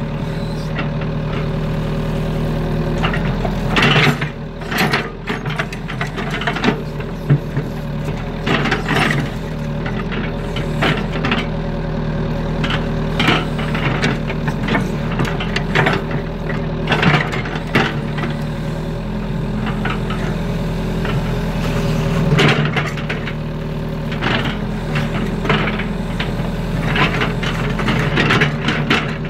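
Excavator's diesel engine running steadily as the boom and bucket work, with frequent irregular knocks and clanks from the digging arm and bucket as it scoops mud and water.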